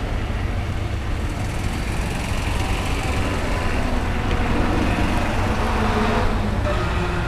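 Steady outdoor background noise of a busy car-show parking lot: a low rumble with distant vehicle sounds, a little louder just past the middle.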